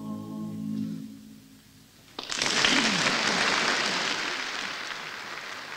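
A held note from amateur singers dies away in the first second or two. About two seconds in, an audience breaks into applause that slowly fades toward the end, all heard on an early-1960s reel-to-reel tape recording.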